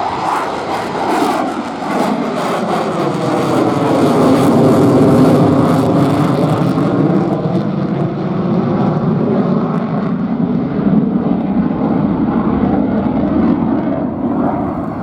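Twin-engined Boeing F-15QA fighter jet passing in a display flypast: a loud, crackling jet roar whose tone sweeps as it goes by. The high crackle drops away about seven seconds in, and the sound fades near the end.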